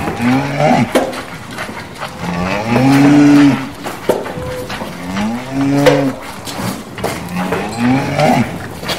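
Cattle mooing in a stable: four drawn-out moos, each rising then falling in pitch, the longest and loudest about three seconds in, with a few sharp knocks between them.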